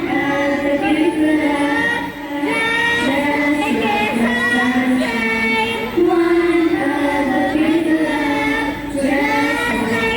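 Voices singing a song together in long held notes, the melody stepping up and down.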